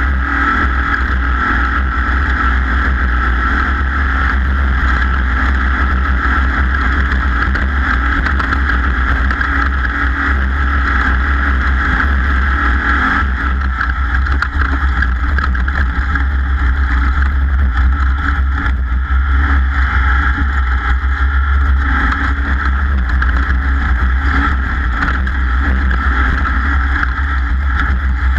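Off-road race vehicle's engine running steadily under way, with wind and drive noise, loud and unbroken.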